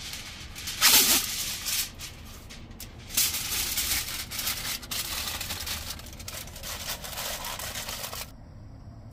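Aluminium foil torn off the roll with a loud rip about a second in, then crumpled and crinkled by hand for several seconds before stopping suddenly near the end.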